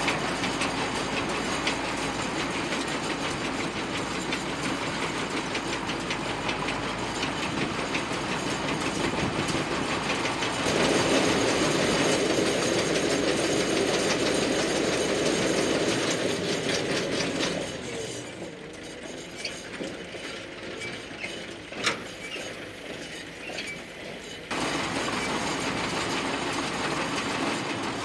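Zetor 6245 tractor's four-cylinder diesel engine running under load while its Sipma Z279/1 round baler works, a steady mechanical clatter with fast, even ticking. It grows louder about eleven seconds in, drops well away for several seconds near the end with one sharp knock, then comes back.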